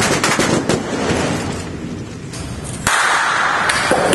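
Squibs firing as simulated bullet hits: a dense run of sharp pops and crackle. About three seconds in it changes suddenly to a brighter, hissing crackle.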